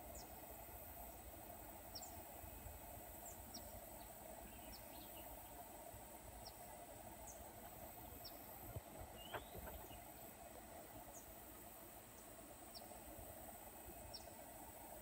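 Faint outdoor ambience: a steady high insect whine, with short, high, falling chirps scattered through it about once a second. A little past the middle come a couple of soft knocks and a brief rising call.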